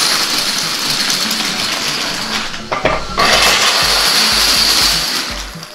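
Masses of toy dominoes toppling in a cascade, a dense rushing clatter that breaks off briefly near the middle and then picks up again. Background music with a thudding bass beat comes in about three seconds in.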